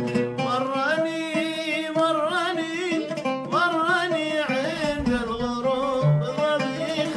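A man singing to his own oud accompaniment. The oud's plucked notes come first; about half a second in, his voice enters in a wavering, ornamented line over the strings and breaks off near the end, leaving the oud.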